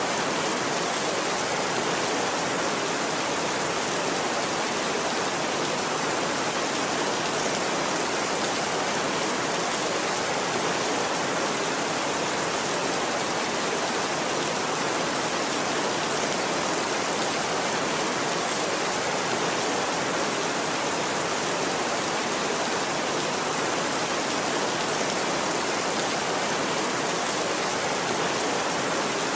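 Steady rain falling, an even hiss of drops with no change in strength and no thunder.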